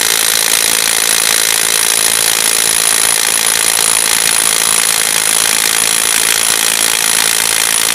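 DeWalt DCF922 cordless impact wrench hammering steadily and without a break as it tries to undo a nut held at about 700 Nm. Its hammer mechanism is impacting continuously but the nut barely moves.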